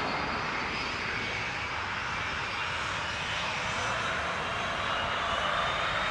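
Airliner jet engines running steadily: a broad rush with a faint high whine over it.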